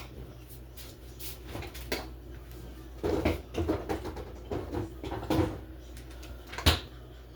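Kitchen handling noises: a run of clattering and rustling about three seconds in, then one sharp knock near the end, the kind made by a cupboard or container being shut.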